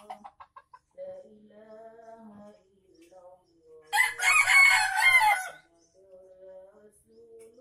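Junglefowl rooster (ayam hutan) crowing once, about four seconds in, a single loud crow lasting about a second and a half.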